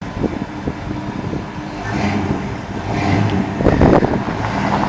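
1957 Ford F100's 429 big-block V8 idling steadily, with a brief louder surge a little over three and a half seconds in.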